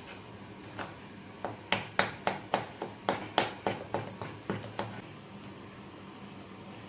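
Wire whisk beating a creamy mixture in a glass bowl, the wires tapping against the glass in a quick run of sharp clicks, about four a second, starting about a second and a half in and stopping about five seconds in.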